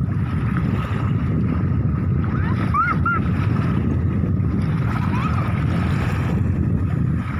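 Wind rumbling on the phone's microphone at the edge of the sea, with a faint steady high tone running underneath. A few short high squeaks rise and fall briefly about three seconds in and again about five seconds in.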